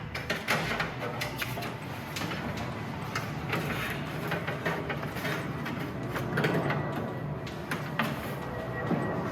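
Handling noise from hands-on work: an irregular run of clicks, knocks and scraping, with a few sharper knocks around the middle and near the end.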